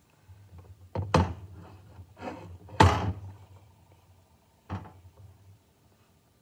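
VEX robotics kit parts being handled on a perforated metal build plate: a handful of sharp knocks and clacks as pieces are picked up and set down, the loudest about three seconds in.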